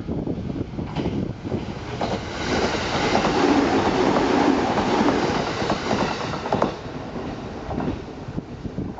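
JR 209-series electric commuter train passing close by, wheels clattering over the rail joints. The noise swells about two seconds in, is loudest in the middle, and dies away after about seven seconds.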